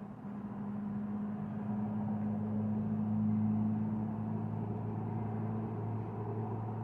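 A loud, deep, steady mechanical hum at two pitches, swelling over the first few seconds and then holding steady. Its source is unidentified.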